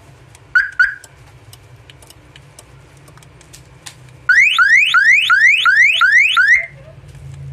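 Red-Line car alarm siren giving two short rising chirps about half a second in. About four seconds in it sounds a loud run of fast rising whoops, about eight in two seconds, then stops.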